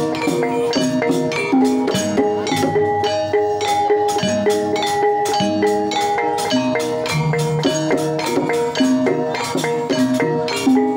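Javanese gamelan ensemble playing a Banyumasan gending: bar metallophones struck with wooden mallets in a fast, steady run of ringing notes, over hand drums and gongs.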